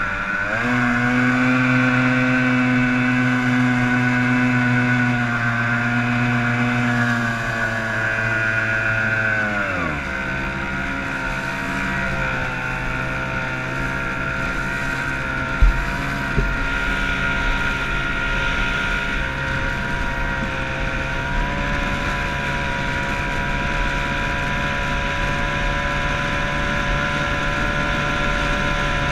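Yamato 102 two-stroke racing outboard on a small hydroplane, revving up right at the start and running at a steady high speed. About ten seconds in it is throttled back to a lower steady speed, which it holds for the rest of the run. A single brief thump comes about halfway through.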